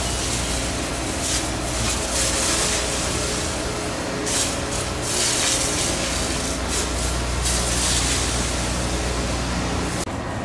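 Scheuchzer Grizzly 104 L rail-grinding train grinding the rails: a loud hiss from the grinding stones that swells and fades again and again over the steady low drone of the machine's engine. Near the end the sound drops abruptly and turns duller.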